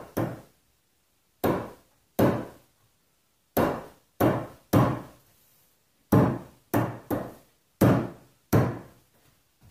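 White rubber mallet pounding a peeled log cross piece down onto glued wooden spindles, seating them in their drilled holes. About eleven separate blows come at an uneven pace, some in quick pairs, each a sharp knock that dies away at once.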